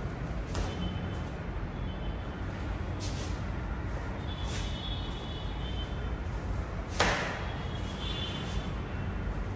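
Karate gi snapping with fast strikes of a Shotokan kata: a handful of short sharp cracks a second or more apart, the loudest about seven seconds in, echoing briefly off concrete over a steady low rumble.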